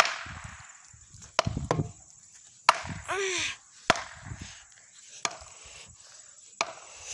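A brick striking a tree trunk again and again: about seven sharp knocks at uneven intervals, roughly a second apart.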